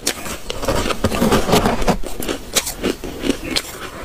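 Close-miked crunching and crackling of frosty ice being chewed and handled, a dense run of irregular sharp cracks.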